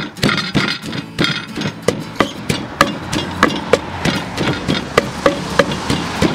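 Long wooden pestle pounding dried red chilies and garlic in a large wooden mortar: dull knocks in a steady rhythm of about three strokes a second.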